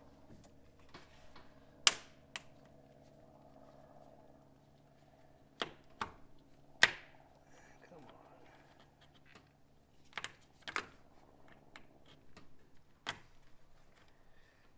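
Scattered sharp clicks and clacks of hand tools and engine parts being handled and set down during engine disassembly, about eight in all, the loudest about two seconds and seven seconds in, over a faint steady hum.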